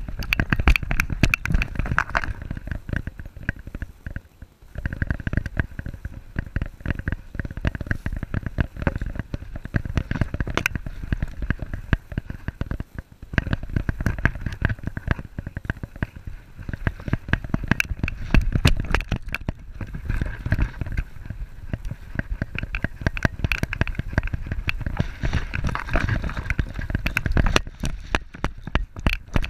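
Wind rushing and jostling on an action camera strapped to a running dog's back: a steady stream of rapid knocks, scrapes and rustles as the dog bounds, with sand spraying up from its paws.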